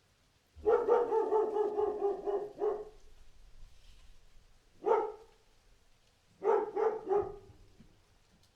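Dog barking: a long, drawn-out bark of about two seconds, then a single short bark, then two quick barks.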